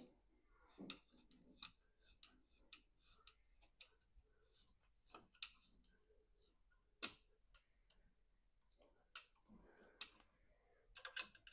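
Faint, irregular clicks and light taps of hard 3D-printed plastic parts being handled and fitted together, with two sharper clicks near the middle and a quick cluster near the end.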